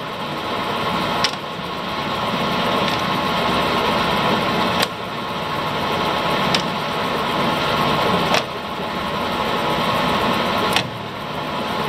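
Warner & Swasey #3 ram-type turret lathe running with a steady gear hum, broken by five sharp clunks from the hex turret being worked by hand.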